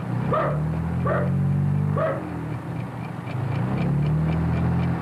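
A dog barking three times, about a second apart, over a low steady drone. From about three seconds in, a clock ticks quickly and faintly.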